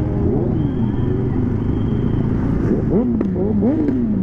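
Motorcycle engine running at low speed, with the revs rising and falling several times in quick blips, mostly in the second half. A few sharp clicks come about three seconds in.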